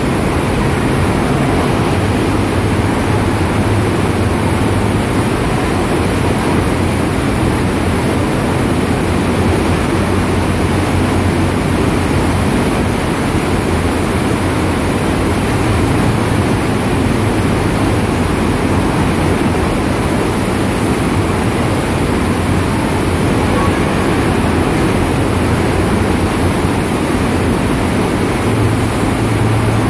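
Artificial sheet-wave surf machine: a thin sheet of water pumped at speed up the padded riding surface, rushing loudly and steadily, with a low steady hum under it.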